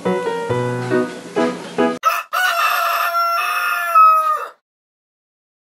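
Plucked guitar music for about two seconds, then it breaks off and a rooster crows once, a call about two seconds long that sags a little in pitch before cutting off.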